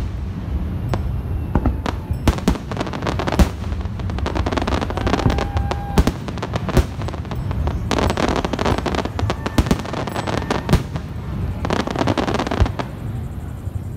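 Aerial fireworks display: shells bursting overhead with many sharp bangs and crackling, coming in several quick clusters over a steady low rumble.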